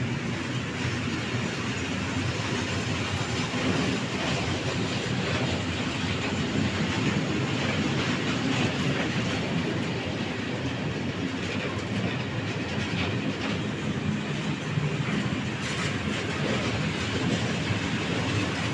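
Freight train of tank wagons rolling past close by: a steady rumble of wheels on rail with wheel clatter over the rail joints.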